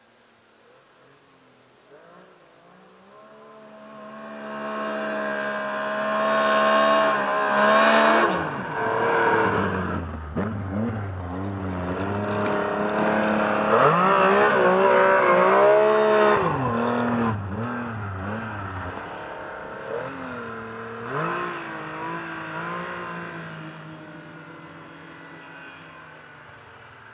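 A snowmobile engine comes closer, revving up and down repeatedly as the sled carves through the snow, then pulls away and fades.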